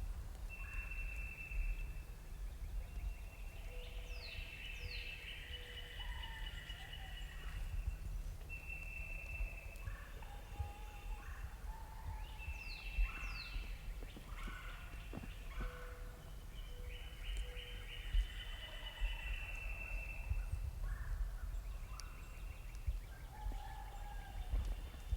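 Wild turkey gobbling, with songbirds calling throughout in steady high notes and quick falling whistles.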